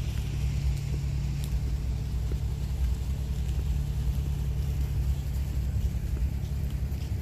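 Steady low outdoor rumble with a faint constant hum, unbroken throughout.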